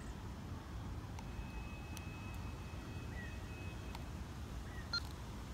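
A Kenwood TH-D74 handheld radio gives one steady high-pitched beep lasting nearly three seconds, with faint clicks of its keys. It sounds over a low outdoor rumble. The beep is typical of the random beeping the owner reports as part of the radio's fault.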